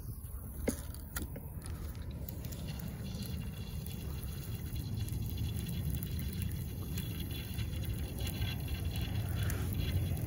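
Outdoor wind rumbling on the microphone, with a few light clicks in the first two seconds; the rumble grows slightly stronger toward the end.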